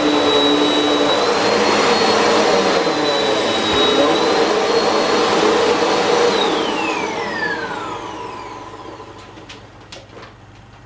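Simple Value bagless vacuum cleaner running on shag carpet with its brushroll spinning on a new belt. It is switched off about six seconds in, and its motor whine falls in pitch as it spins down, leaving a few faint clicks.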